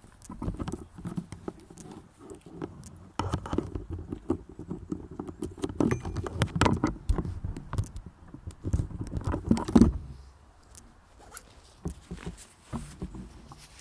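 Footsteps and rustling on grass close to the microphone as a person and a small dog walk past: irregular soft thuds and scuffs that thin out after about ten seconds.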